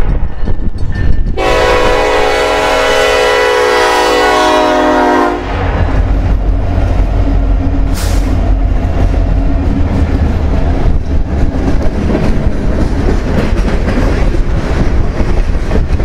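Diesel locomotive air horn sounding one long, steady blast of about four seconds, sounded as the lead EMD SD70M-2 locomotive reaches a road crossing. Then the locomotives' diesel engines rumble past close by, followed by loaded freight cars rolling past with a steady rattle of wheels on rail.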